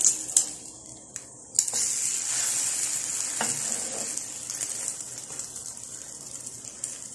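Egg-soaked French toast sizzling in hot oil in a non-stick frying pan as it is flipped with a metal spatula and a wooden spatula. The sizzle grows louder about a second and a half in, as the uncooked side goes down into the oil, then slowly fades. A few light taps of the utensils sound over it.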